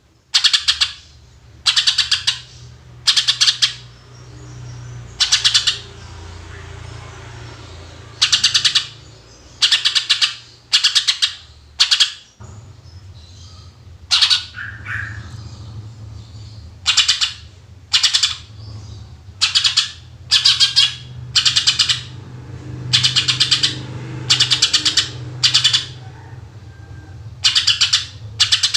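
A green leafbird (cucak ijo) singing in short, loud bursts of rapid shot-like notes, about one burst a second with brief pauses between, over a steady low hum.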